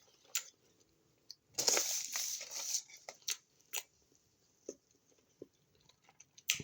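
Eating sounds of a crispy chicken sandwich: a noisy crunch lasting about a second, starting a second and a half in, then a few short, soft mouth clicks of chewing.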